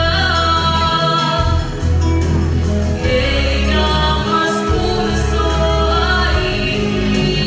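A girl singing solo into a handheld microphone, over instrumental accompaniment with long held bass notes and a light regular beat.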